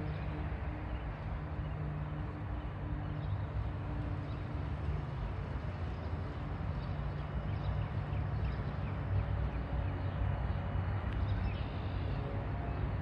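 A steady low engine drone with a hum in it, with faint bird chirps over it.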